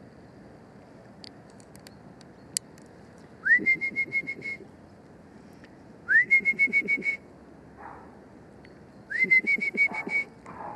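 A person whistling three times to call the puppies. Each call is a short rising note that levels off into a rapid fluttering trill about a second long.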